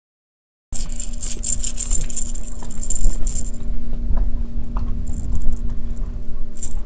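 Silent for the first second, then a lipless rattle-bait lure rattling hard for about three seconds as a freshly landed speckled trout shakes on the line, tapering to scattered clicks. Wind rumbles on the microphone throughout, with a steady low hum underneath.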